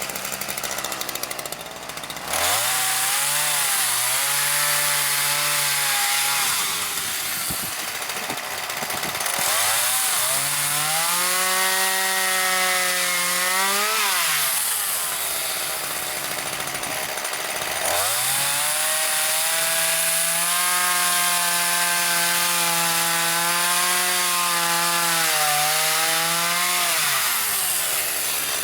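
Chainsaw revving up and cutting through wooden slabs three times, the last cut the longest, its engine dropping back to idle between cuts.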